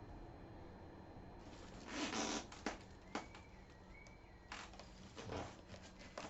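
Faint rustling and a few light clicks and knocks as a PC case and its packaging are handled.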